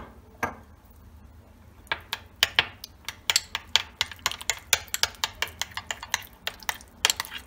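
Metal spoon stirring mayonnaise and pomegranate molasses in a small ceramic bowl, clinking against the bowl. After a couple of single clinks, the stirring settles about two seconds in into quick, even taps, about four a second.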